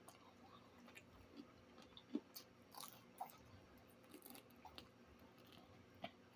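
Faint chewing close to the microphone: soft, irregular mouth clicks and smacks of someone eating.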